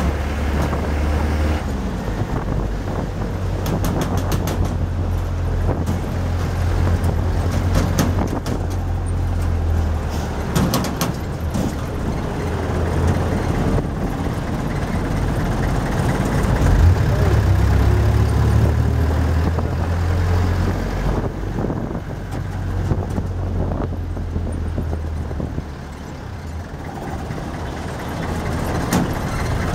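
Vehicle engine running with road noise while driving, heard from inside the vehicle: a steady low drone that swells and eases with speed, dipping for a moment near the end.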